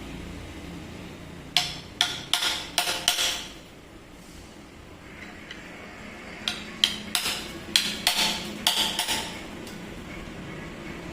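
Metal tools and parts knocking and clinking against each other while a rotary hammer drill is worked on. There are two clusters of several sharp strikes, each ringing briefly. The first starts about a second and a half in, the second about six and a half seconds in.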